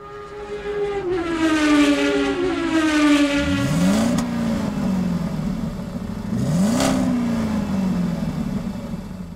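Car engine sound effect: a pitched drone falling over the first few seconds, then two sharp revs about three seconds apart, each climbing quickly and sliding back down. A sharp click comes with the first rev and a whoosh with the second.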